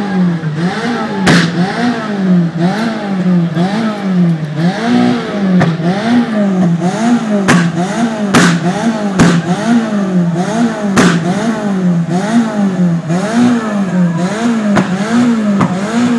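A car engine revved up and down over and over in a steady rhythm, about one rev every second and a bit, with sharp exhaust pops now and then.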